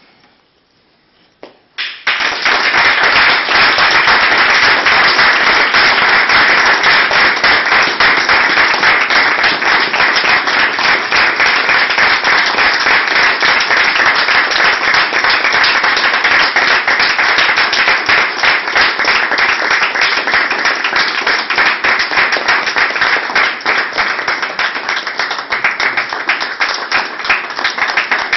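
Audience applauding. After a short quiet moment the clapping breaks out suddenly about two seconds in, stays loud and dense, and thins a little near the end.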